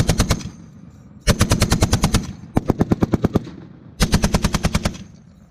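Browning M2 .50 calibre heavy machine gun firing in short bursts, four in all (the first already under way and stopping just after the start), each about a second long at roughly ten shots a second.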